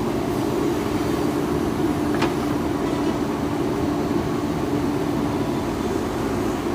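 JCB 3DX backhoe loader's diesel engine running at steady revs under working load, with one brief click about two seconds in.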